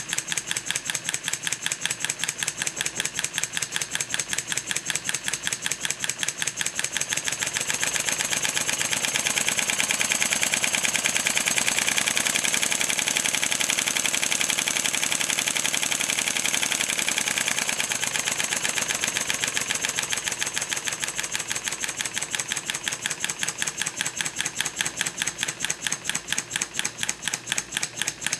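Model two-cylinder marine compound steam engine running, its exhaust giving a rapid, even train of clicking beats. From about eight seconds in the beats quicken and blur together as it is sped up, then slow and separate again after about eighteen seconds.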